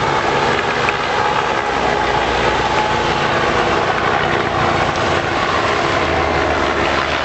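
Steady engine noise with several held tones and no distinct events, level throughout.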